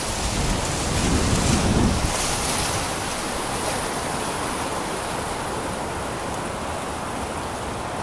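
Wind buffeting the microphone, with heavy low rumbling gusts in the first two seconds, then a steady rushing noise.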